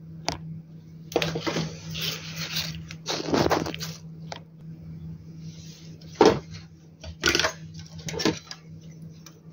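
Hard plastic clicking and scraping as a plastic piece is worked loose and pulled off an inverter's circuit board: a longer scraping stretch about a second in, then separate sharp clicks and knocks.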